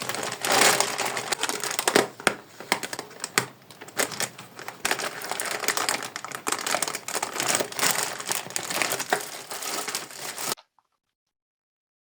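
Packaging crinkling and rustling as it is handled and opened, with many small crackles. It cuts off suddenly near the end.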